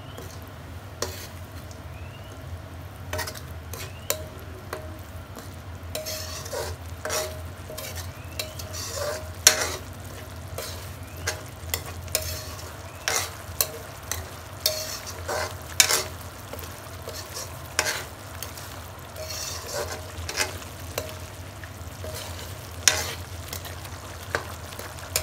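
Red curry paste and coconut cream frying in a pan while a spatula stirs, scraping and knocking against the pan in irregular strokes that come more often from about six seconds in.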